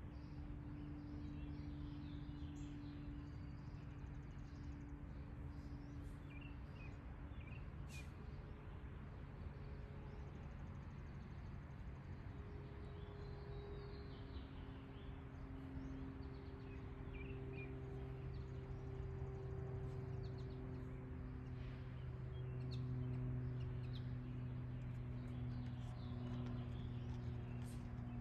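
Outdoor ambience: a few short bird chirps over a steady low hum.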